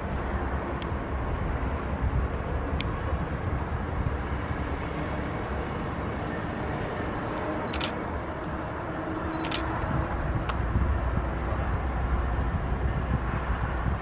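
Diesel-electric freight locomotive running light on its own, approaching: a low engine rumble that grows louder from about ten seconds in. A few sharp clicks are heard over it.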